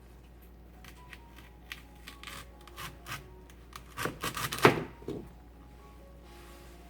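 Celery stalks being trimmed by hand: scattered light crisp snaps and rustles, then a quick run of louder cracking snaps about four to five seconds in.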